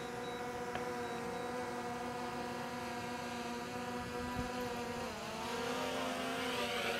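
DJI Air 2S quadcopter's propellers whining steadily as the drone descends and lands on paving. The pitch dips and wavers briefly about five seconds in.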